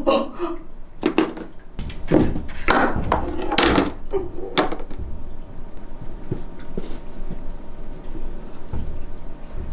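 Small pool balls knocking and rolling against the wooden rails of a tabletop mini pool table as a cat paws at them: a quick run of clacks and thunks through the first five seconds, then only a few faint taps.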